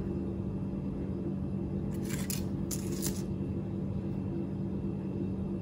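Two brief crinkles of the foil wrapper on a chocolate coin being handled, about two and three seconds in, over a steady low hum.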